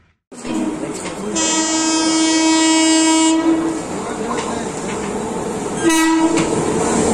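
Indian Railways WAP-7 electric locomotive's horn: one long blast of about two seconds, then a short blast near the end, over the rising rumble of the train approaching.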